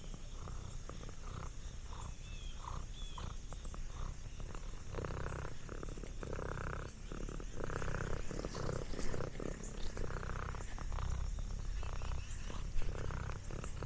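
Orange tabby cat purring close by, the purr swelling and fading in steady in-and-out cycles that grow stronger from about five seconds in.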